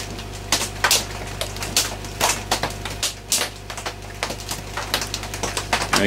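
Hard rain popping on a tin roof: irregular sharp ticks and pops, several a second, over a steady low hum.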